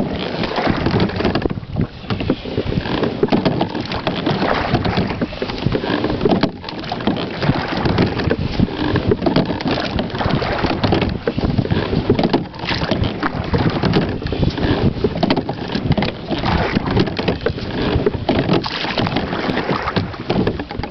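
Rowing noise from a slide-seat rowboat with carbon-fibre oars: blades dipping into and pulling through the water, with irregular knocks from the rigging. Wind rustles on the microphone throughout.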